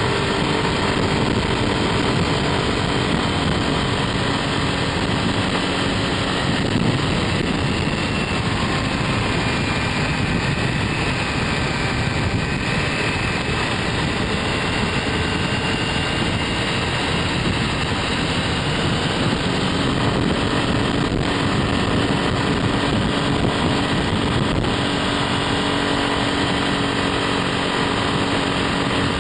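Scooter riding along at speed: a steady rush of wind and road noise over a low-mounted microphone, with the scooter's engine droning underneath and its pitch drifting a little with speed.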